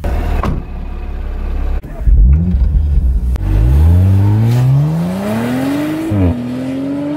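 Audi RS5's twin-turbo V6 engine: a low rumble, a sudden loud rev about two seconds in, then accelerating hard with the pitch rising steadily until a gear change near the end drops it, after which it holds a steady note.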